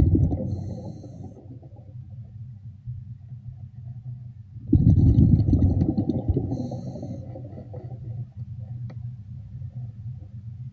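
Diver's exhaled breath bubbling out underwater in low rumbling surges, one fading away at the start and another starting about five seconds in, each followed by a short faint hiss, over a steady low hum.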